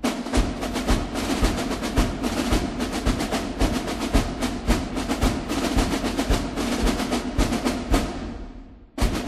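Background music driven by fast, steady drum and percussion beats. It fades out near the end, then starts again abruptly.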